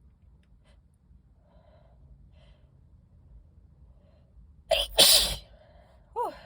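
A woman sneezes loudly about five seconds in, a short catch then the main explosive burst, followed by a brief falling vocal sound. It is one sneeze in a sneezing fit brought on by dust from old books.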